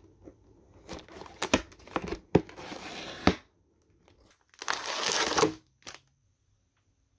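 White paperboard packaging being handled and opened: several sharp taps and snaps of the card, and two longer stretches of rubbing and crinkling as the flaps and contents slide, before the sound cuts off.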